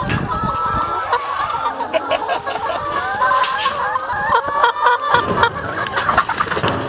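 A large flock of brown laying hens clucking and calling over one another, many short overlapping calls at once.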